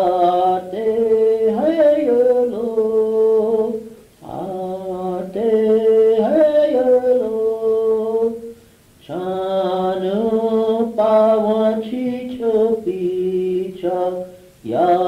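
Unaccompanied Lakota chant-like song: a voice singing held and gliding notes in phrases of a few seconds, with short breaks about 4 and 9 seconds in. The sound is dull, with little treble, as on an old portable cassette recording.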